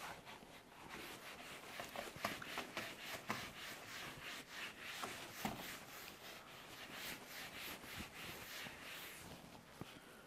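Felt whiteboard eraser scrubbing marker off a whiteboard in quick, repeated back-and-forth strokes: a soft, hissy rubbing.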